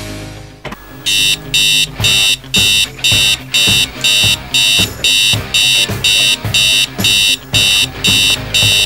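Digital alarm clock beeping, a high beep about twice a second, starting about a second in, over background music.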